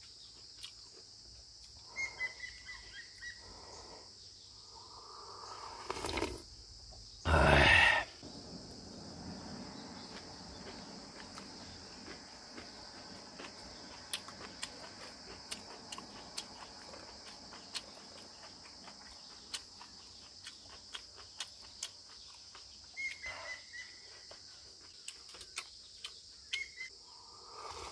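A steady high chirring of insects, with scattered light clicks and clinks of a spoon and chopsticks against a metal cup and frying pan. One loud, short rush of noise comes a little after seven seconds in.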